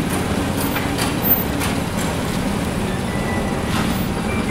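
Lincoln Navigator SUV's V8 engine idling steadily, a low even hum, with a few faint ticks over it.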